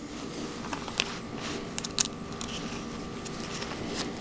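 Soft handling noise and small clicks of small polycarbonate-carbon-fiber 3D-printed extruder idler parts and a screw being fitted together by hand, with a screwdriver starting the screw; two sharper clicks come about one and two seconds in, over a faint steady hum.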